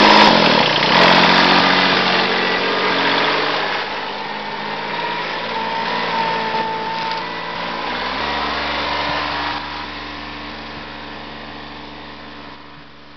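Kubota compact tractor's diesel engine running. It is loudest at the start, its note shifts about eight seconds in, and it grows fainter toward the end.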